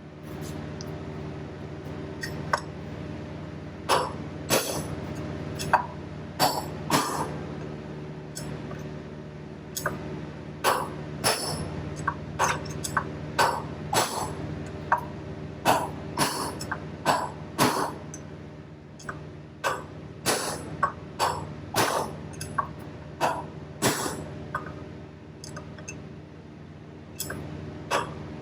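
Repeated hammer blows on metal, driving a bearing race out of a square baler's wheel hub: sharp metallic strikes, irregular, often one or two a second and sometimes in quick pairs. A steady hum runs underneath.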